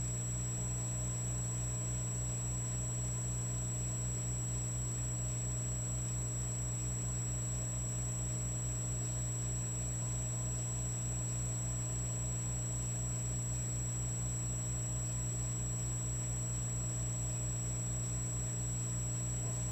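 Electric fireplace log set running with a steady electrical hum and buzz. Over it sit a constant high whine and a fast, even low pulsing.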